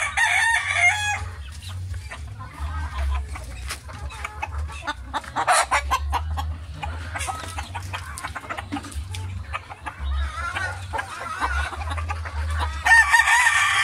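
Young gamefowl roosters and hens clucking, with a rooster crowing briefly at the start and again near the end. A low rumble runs underneath.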